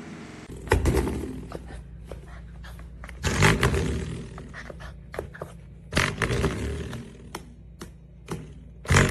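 Spring door stopper twanging several times, a few seconds apart, as a puppy bats it with its paw; each twang rings out with a buzzy wobble and fades, with small clicks between.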